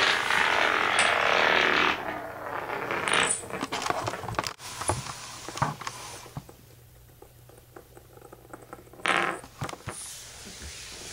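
Wooden spinning top running on a hardwood floor: a loud scraping whirr that fades after about two seconds into lighter rattling and clicks as it spins on. Near the end come two brief louder scrapes.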